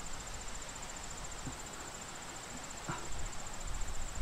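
Crickets trilling steadily in a rapid high pulse over faint outdoor background noise, with a couple of faint soft knocks; a low rumble comes up near the end.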